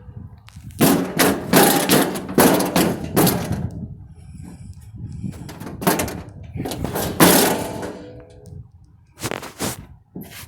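Sledgehammer blows on an old metal vending machine: about a dozen sharp bangs in three quick clusters, with short pauses between them.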